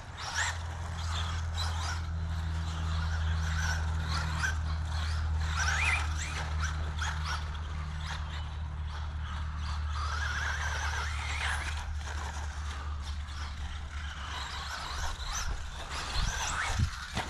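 Traxxas Bandito RC buggy's Velineon brushless motor whining up and down as the buggy is driven, over a steady low hum.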